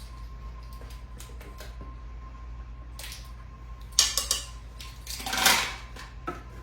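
Light clicks and taps of kitchen utensils and dishes as batter ingredients are measured in, with a louder clatter about four seconds in and a short scraping rush a second later, over a steady low hum.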